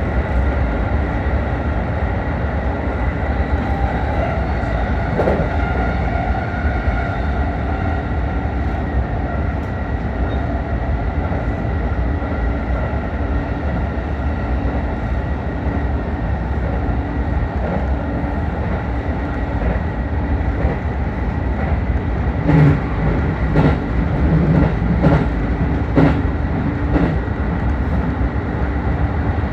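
JR 313-series electric train running along the line: a steady rumble of wheels on rail with a few held tones over it. Near the end comes a run of sharp knocks and clacks from the wheels.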